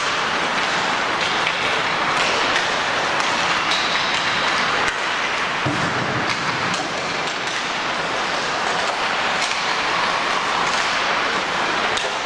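Ice hockey arena noise: a steady wash of sound with scattered sharp clacks.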